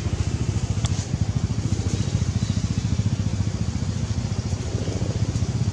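An engine idling steadily nearby, with a fast, even low throb.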